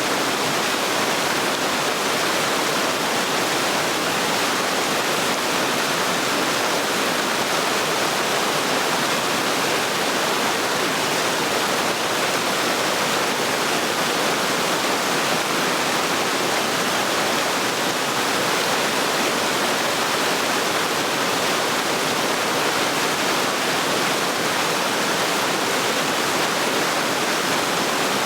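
Waterfall: water falling and splashing in a steady, even rush with no change.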